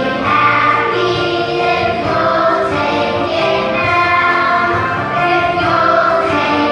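Children's choir singing a Christmas song in unison, with long held notes.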